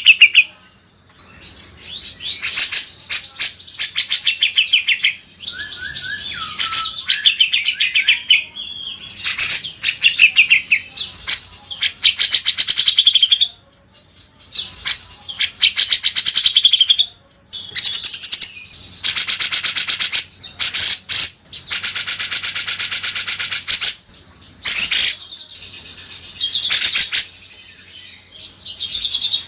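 Cucak jenggot and kinoi songbird song, as used for tutoring cage birds. It comes as loud, very rapid, harsh trills in bursts lasting from a moment to several seconds, with short pauses between them; the longest bursts come about two-thirds of the way in.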